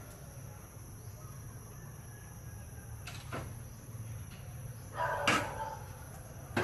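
Honda motorcycle's kick-starter being worked without the engine starting: a few sharp mechanical clacks, the loudest about five seconds in with a short rattling burst, over a low steady hum.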